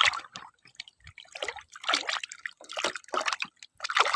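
Toy mini shotgun's firing sounds: a string of short hissing bursts, about two a second.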